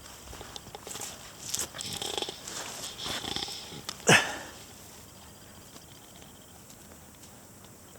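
Akita puppies playing, with scuffling noises and one short, loud, sharp yip about four seconds in, after which it goes quiet.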